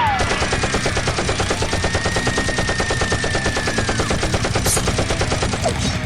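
Rapid automatic gunfire, about ten shots a second, sustained without a break.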